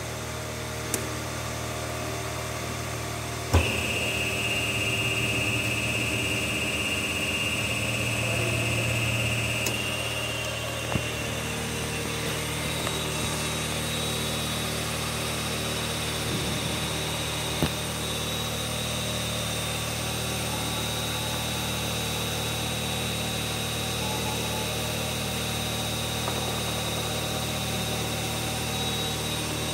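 Hydraulic power pack of a crusher door opening system, its motor and pump running with a steady hum. A few sharp clicks sound, and after the loudest one a high whine holds for about six seconds before it stops.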